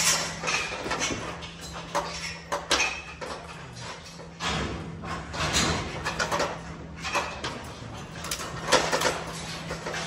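Metal clanks, knocks and rattles from an Arrowquip Q-Power squeeze chute as calves are worked through it, over a steady low hum.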